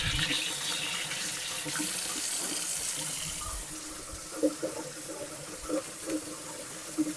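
Kitchen tap running in a steady stream onto green peppers in a metal colander in the sink as they are washed. The water gets quieter about four seconds in.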